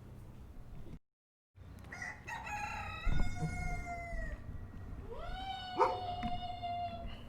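Rooster crowing twice, each crow about two seconds long, the second rising and then holding its pitch, over a low barnyard rumble. A short dropout to silence comes about a second in, and a couple of brief knocks sound during the crows.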